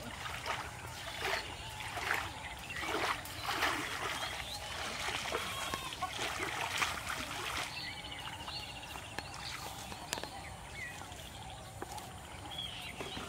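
Water splashing in repeated bursts as a hooked fish thrashes at the surface on a bamboo rod's line, dying down after about seven seconds.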